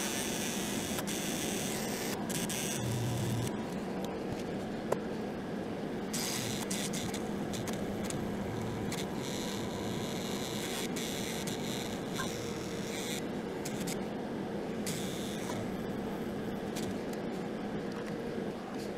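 Small rotary tool with a diamond bit running steadily, grinding a cross slot into a stripped screw head so it can be twisted out. It eases off briefly near the end.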